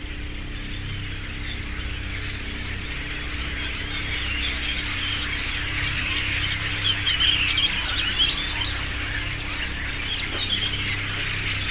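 A flock of birds chirping and chattering, many overlapping calls that grow denser and louder toward the middle, over a low steady drone.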